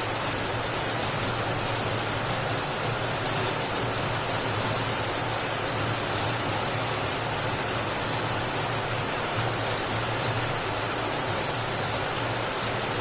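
A steady hiss with a low hum under it, unchanging throughout, with no distinct knocks or taps standing out.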